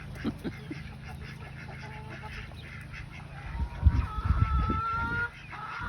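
Domestic fowl calling: a held call on a steady pitch from about three and a half seconds in to about five, over low thumping, with a shorter call near the end.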